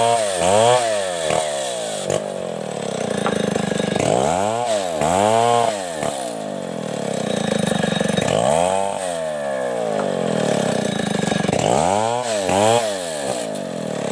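Two-stroke STIHL chainsaw ripping lengthwise through a coconut-palm trunk. The engine pitch sags and climbs back again and again as the chain bites into the wood and frees up.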